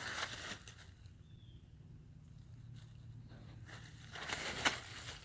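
Dry fallen leaves rustling and crunching as a Weimaraner pushes his head and shoulder into them, in two bursts: briefly at the start and again about four seconds in, with a sharp snap near the end.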